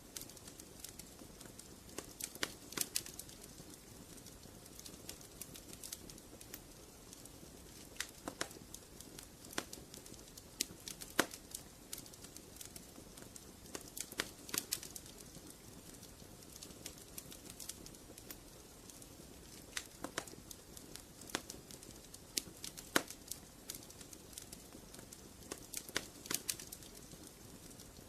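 Wood fire burning in a fireplace, crackling with irregular sharp pops and snaps over a soft steady hiss.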